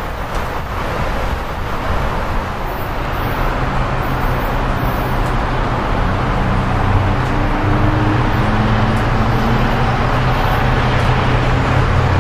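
A train approaching: a steady rumble with a low hum that comes in about three seconds in and grows slowly louder.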